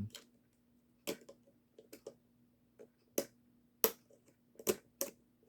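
Sharp clicks and snaps, about eight at irregular spacing, from a tool picking and prying at a tight part in the small plastic arm-and-head mechanism of a dancing animated toy.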